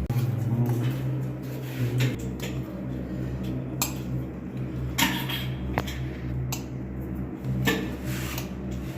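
Scattered metallic clinks and knocks of plumbing tools and fittings being handled, over a steady low hum that starts at the outset.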